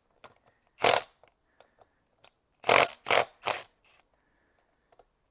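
A ratchet wrench working the fork clamp bolts of a Suzuki DR650's front end, in short bursts: one about a second in, then three in quick succession about two seconds later, with light clicks between.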